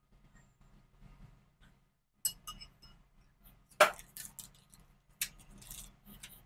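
Steel ladle and utensils clinking against metal as a fried fritter is lifted from the kadai and the ladle is set down on the steel stovetop: a series of sharp clinks, the loudest about four seconds in.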